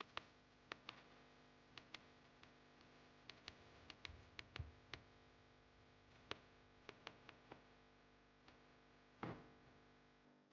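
Near silence, with scattered faint clicks and taps at irregular intervals over a faint steady hum.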